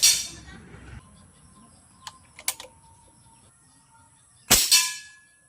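Two loud, sharp cracks, one right at the start and one about four and a half seconds in, each with a short fading tail, with a few fainter clicks between them.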